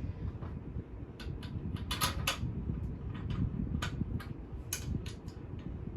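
Irregular clicks and knocks of hard vacuum cleaner parts being handled and fitted together, over a low rumble of handling noise.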